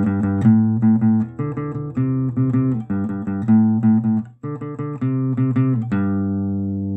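Short instrumental intro jingle of quick plucked notes, with a brief break about four seconds in, ending on a chord that is held and slowly fades.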